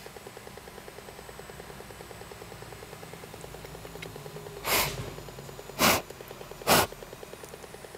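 Three short puffs of breath blown at a blow-out LED candle, switching its flickering light off. A faint, steady pulsing buzz runs underneath.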